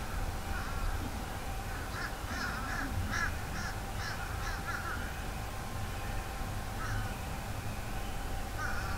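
Crows cawing: a quick run of about eight harsh caws between two and five seconds in, then single caws near seven seconds and near the end.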